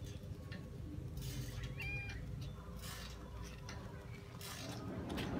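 A cat gives a short, high meow about two seconds in, amid a few soft rustling noises.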